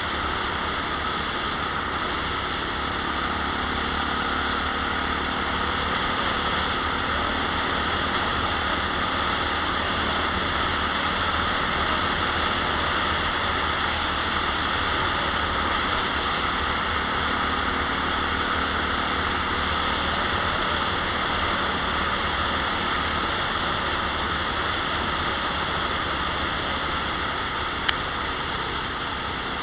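Steady rush of wind and road noise from riding along a road at an even speed, with a faint steady engine hum under it. A single sharp click near the end.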